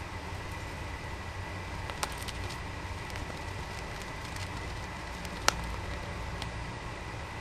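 Budgerigar nibbling and tearing at leafy greens with its beak: soft crackling and rustling, with a sharp click about two seconds in and a louder one about three-quarters of the way through.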